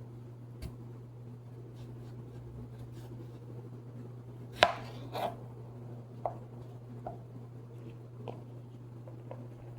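A large kitchen knife chopping on a cutting board in slow, irregular single cuts, about seven in all, the sharpest one near the middle, over a steady low hum.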